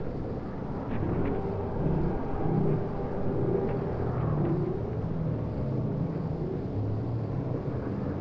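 Steady outdoor rumble of wind on the microphone, with a distant engine drone that wavers in pitch.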